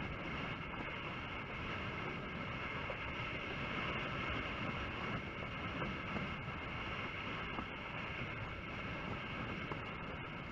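Steady rush of wind and water from a slalom windsurf board sailing at speed, heard close on a board-mounted camera's microphone, with a faint steady high hum running under it.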